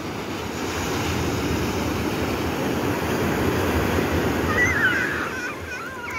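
Ocean surf washing onto a beach, a steady rushing wash that swells and eases, with some wind on the microphone. From about four and a half seconds in, a high wavering cry sounds over it.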